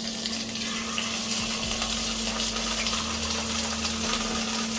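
Chicken wings frying in a small amount of hot oil in a pot, just after going in: a steady sizzle with fine crackles, over a steady low hum.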